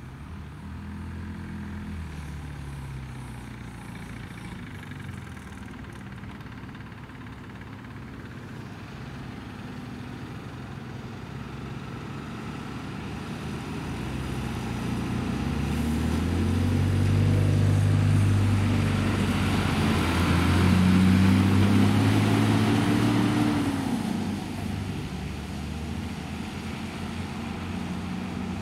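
Diesel engine of a Magirus-Iveco fire engine pulling away and accelerating past, its pitch rising and falling through the gears, loudest about two-thirds of the way in, with tyre hiss on a wet road. Before that, another fire truck's engine fades away into the distance.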